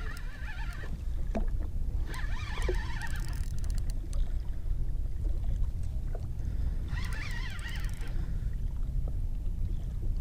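Steady low rumble of wind and water around a small fishing boat, with three short higher-pitched scratchy bursts about a second long: near the start, about two seconds in, and about seven seconds in.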